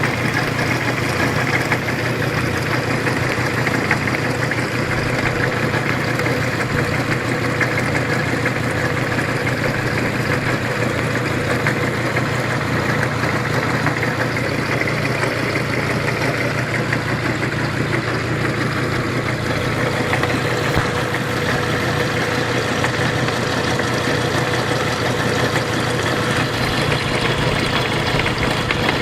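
Honda G20A inline-five engine idling steadily with a knock mixed into its running; the source of the knock, which appeared recently, can't be pinned down.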